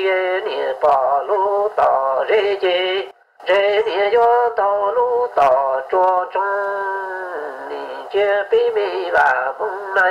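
A solo voice singing a slow melody with wavering pitch and long held notes, breaking off briefly about three seconds in.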